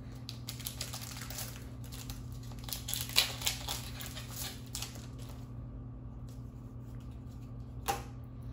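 Foil booster-pack wrapper crinkling and rustling as it is opened and the trading cards are slid out, loudest about three seconds in, with one more short rustle near the end as the cards are handled.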